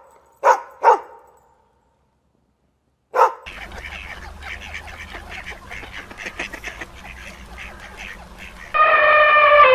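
A dog barks twice in quick succession, then once more about three seconds in. Next, a flock of waterfowl keeps up a busy chatter of quacks and honks for about five seconds. Near the end a loud, long pitched animal call begins and bends downward.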